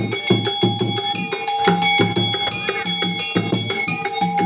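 Traditional Indonesian percussion music: a hand drum beating a quick, steady rhythm under ringing struck gongs and small bell-like metal notes.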